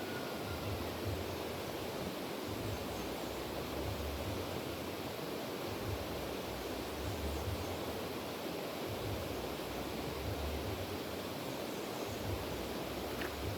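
River water rushing steadily, with irregular low rumbling underneath.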